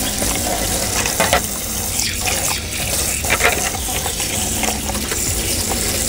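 Kitchen tap running steadily into a stainless steel sink while hands rinse coffee maker parts under the stream, the water splashing off them.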